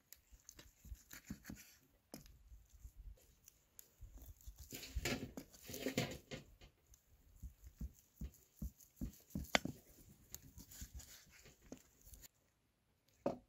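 Knife cutting raw lamb on a wooden block: scattered light taps and scrapes, with a longer stretch of scraping and tearing about five seconds in and one sharp tap near ten seconds.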